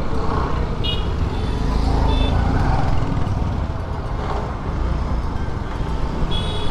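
Riding a motor scooter through busy street traffic: a steady low rumble of the engine and road noise, with a few short high-pitched beeps scattered through, the last ones near the end.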